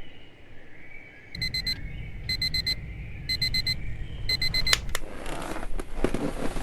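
Digital alarm clock beeping in quick groups of four, one group about every second, four groups in all. Just before five seconds in it stops with a couple of sharp clicks, followed by rustling and small knocks.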